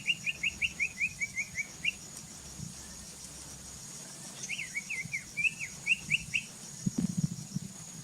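A songbird singing two phrases of quick, high chirping notes: a run of about a dozen notes falling slightly in pitch, then after a pause of about two seconds a second phrase of swooping notes.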